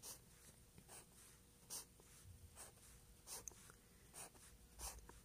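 Pencil on paper: faint, short scratching strokes, about two a second, as drawn circles are crossed off one by one with a pencil.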